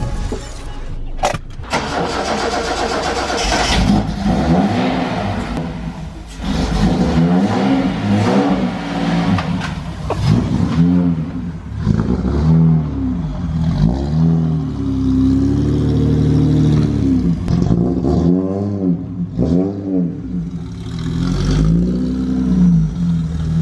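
Classic Datsun Z-car's engine running and being revved in repeated blips, its pitch rising and falling again and again, with one longer held rev around the middle.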